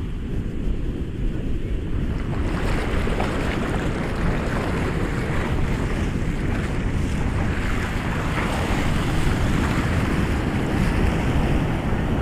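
Ocean surf: waves breaking and washing in, a wave's rush swelling up about two seconds in and carrying on, over a steady low rumble of wind on the microphone.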